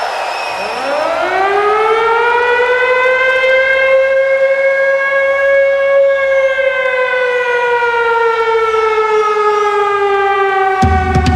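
A siren-like wail played through the concert sound system as an interlude effect. It swoops up about half a second in, then holds and sinks very slowly in pitch. Near the end an electronic dance beat with heavy bass starts under it.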